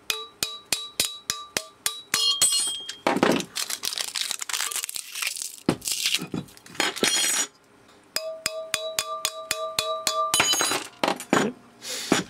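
Metal parts of a flight recorder's stainless steel housing clinking and ringing as they are worked loose: a run of quick taps at about five a second, then scraping, then another run of ringing taps and a couple of louder clanks near the end.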